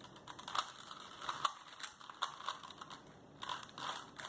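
Rubik's cubes being turned fast, their plastic layers clicking and clacking in quick irregular bursts.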